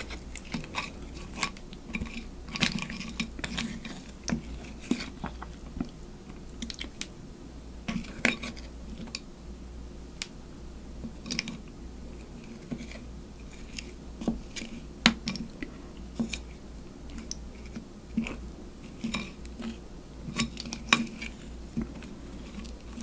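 A spoon scooping and scraping spicy crab marinade and crab pieces on a ceramic plate, with irregular sharp clicks of the spoon against the plate. Chewing sounds run between the clicks.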